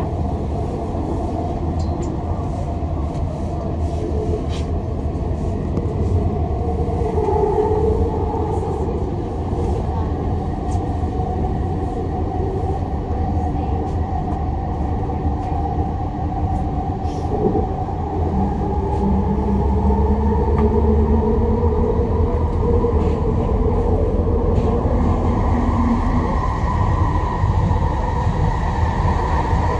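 SkyTrain metro car running along the guideway on its linear induction motors: a steady low rumble with propulsion whines that slide up and down in pitch as the train changes speed, and a few light clicks. Near the end a whine climbs in pitch as the train speeds up.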